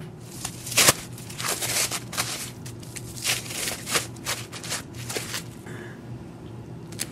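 Plastic cling wrap crinkling and rustling as it is pulled open and peeled off a ball of pasta dough, in a string of short irregular crackles.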